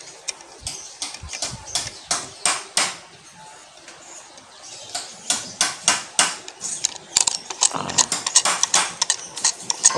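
Handling noise from a phone held close: irregular sharp clicks and taps, sparser for a moment, then coming several a second.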